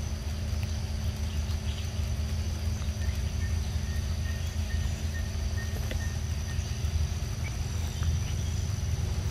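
Outdoor ambience dominated by a steady low rumble with a low hum, under a steady high insect drone. A run of evenly spaced short high chirps comes from about two and a half to six and a half seconds in, with a few faint clicks scattered about.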